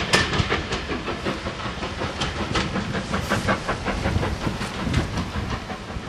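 Steam-hauled passenger train rolling away, its coach wheels clicking over the rail joints in a dense run that eases slightly as the train recedes, over the hiss and rumble of the train.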